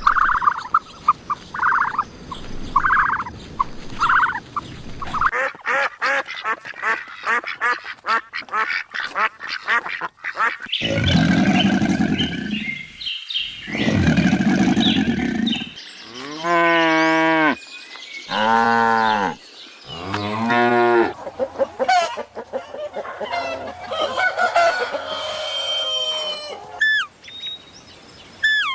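A sequence of different farm animal calls one after another: about six short honking calls, then a rapid string of clicks, then two long, loud, low calls, then three long wavering calls, and finally chirping and short gliding bird calls.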